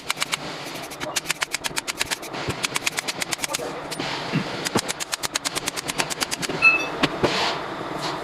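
Hand ratchet wrench clicking in quick runs of about ten to twelve clicks a second, several runs with short pauses between them, as fasteners on a truck alternator are worked loose. A brief high metal squeak comes near the end.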